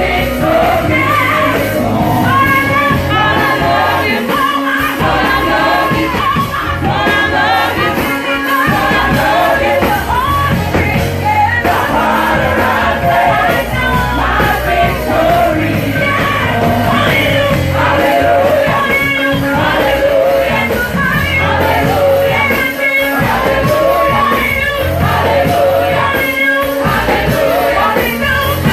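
Up-tempo gospel praise and worship music: lead and group vocals singing over a full band with bass and drums.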